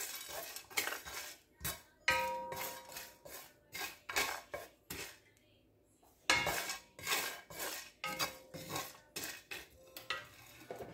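Wooden spatula scraping and knocking against a dry frying pan, stirring whole spices as they dry-roast, with no oil yet in the pan. The strokes pause briefly about halfway, then carry on.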